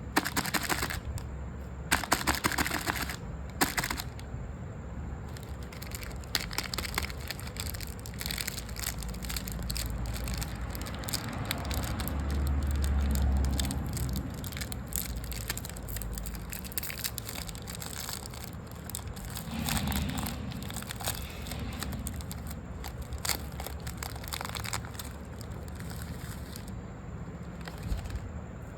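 Crunching and crinkling of snacks and their packaging, a dense run of crackles and clicks, loudest in a few bursts near the start.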